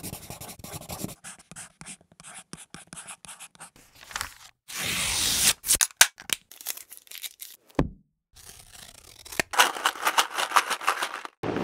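A string of separate short sound effects: rapid clicks and taps, a burst of rushing noise about five seconds in, and a dense stretch of scratchy, scraping noise near the end.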